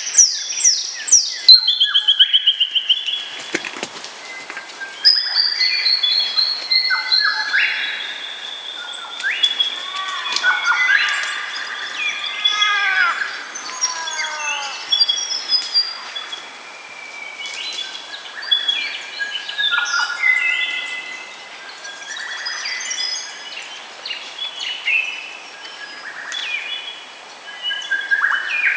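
Birds singing in a morning chorus: overlapping calls, trills and whistled phrases from several birds. It opens with a fast run of repeated falling notes.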